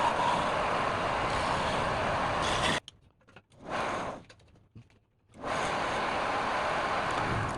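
A woodworking power tool running with a steady, noisy whir. It cuts off abruptly a little under three seconds in, gives one short burst about a second later, and runs again from about five and a half seconds in.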